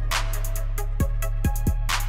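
Instrumental background music with a programmed beat: a deep sustained bass under evenly spaced kick drums and crisp hi-hat and snare hits.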